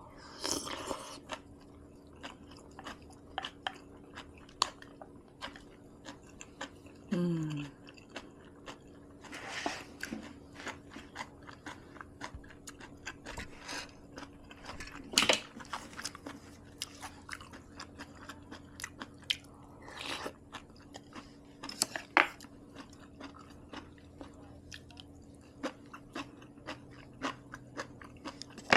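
Close-miked eating: chewing and crunching of rice and kimchi, with many small wet mouth clicks and a few louder bites through the stretch. A brief low falling vocal sound comes about seven seconds in.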